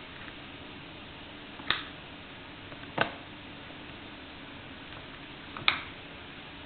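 Three sharp, single clicks at uneven spacing over a steady low hiss, from an N gauge model railway layout.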